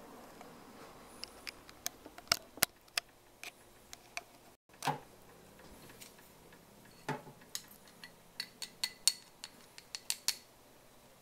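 Light clicks and taps from a small glass sake cup being handled, in irregular clusters, with two duller knocks in the middle and a few clicks with a short high ring near the end.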